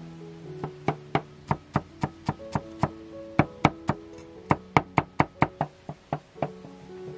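Cleaver chopping garlic on a thick wooden chopping block: a run of sharp knocks, about four a second, broken by a couple of short pauses, over background music.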